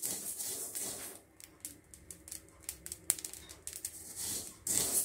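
Mustard seeds popping as they roast in a metal kadai: scattered, irregular sharp crackles, the cue that the seeds are fully roasted. A wooden spatula stirs softly near the start and again near the end.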